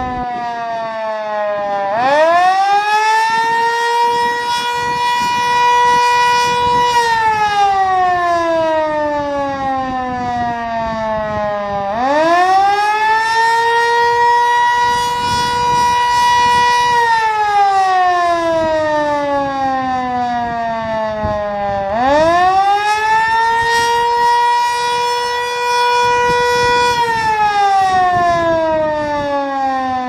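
Darley Champion electromechanical fire siren sounding its weekly test signal. It winds up quickly to a steady high pitch, holds about five seconds, then winds down slowly, starting up again every ten seconds, three times.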